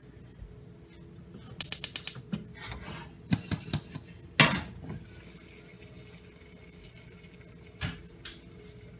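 A gas range's igniter clicks rapidly, about six clicks in half a second, as the burner is shut off. Then come metal clanks as the lidded saucepan is lifted off the cast-iron grate, a sharp clank of the pan about four and a half seconds in, and a knock near the end as the pan is set back down on the grate.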